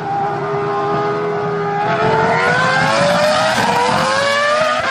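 Formula One racing car's engine at high revs, its note climbing steadily as the car accelerates, with one short dip in pitch about three and a half seconds in before it climbs again.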